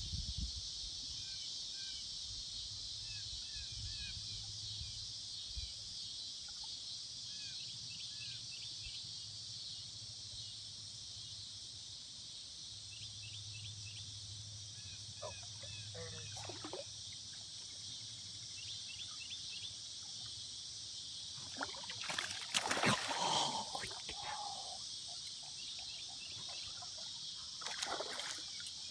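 Hooked fish splashing at the water's surface while it is played on a rod: a loud flurry of splashes about three-quarters of the way in and another short splash near the end. Behind it, a steady high drone of insects and scattered small bird chirps.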